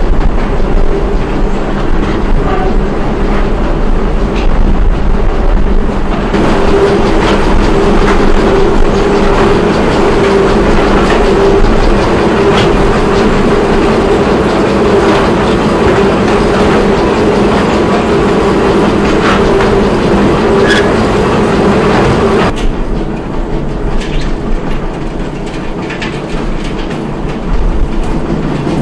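Concrete plant machinery running: a loud, steady mechanical rattle over a motor hum, with scattered clicks. It changes abruptly twice, growing louder and brighter about six seconds in and dropping back with a few seconds left.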